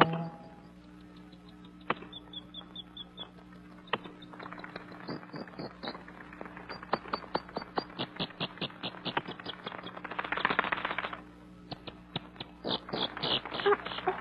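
A quick, irregular run of sharp clicks and short high chirps over a faint steady hum, with a soft hiss swelling up in the middle and fading near the end.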